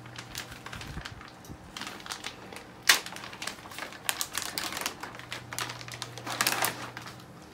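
Clear plastic package of an inline suction catheter being pulled open and handled: irregular crinkling and clicking of the plastic, with one sharp snap about three seconds in, over a faint low steady hum.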